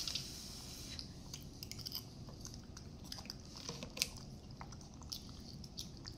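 Quiet chewing and mouth-smacking of a baby monkey eating noodles fed to it from a spoon, with a sharp small click about four seconds in.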